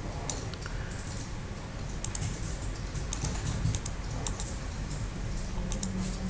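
Computer keyboard keys being typed in irregular, scattered clicks, over a low steady hum.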